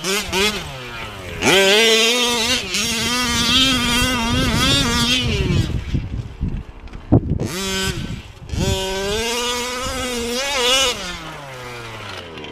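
Two-stroke petrol engine of a 1/5-scale Losi 5ive-T RC truck revving hard as it is driven. The pitch climbs about a second and a half in, holds with a wavering note, and drops off. A single sharp knock comes about seven seconds in, then the engine revs up again and falls away near the end.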